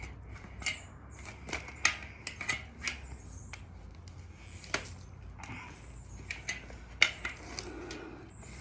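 Irregular clicks, ticks and light scrapes of a bicycle tyre bead being pried back over the metal rim, with a sharper snap about seven seconds in.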